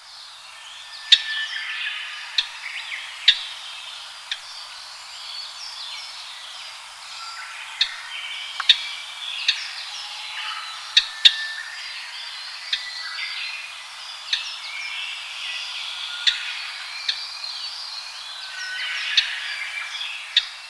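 Several Japanese grosbeaks calling at once: a dense, overlapping chatter of chirps and short whistles, broken by frequent short, sharp, loud notes at uneven intervals.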